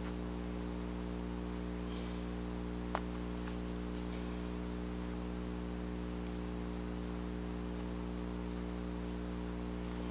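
Steady electrical mains hum, a low buzz made of several evenly spaced tones, with a faint click about three seconds in.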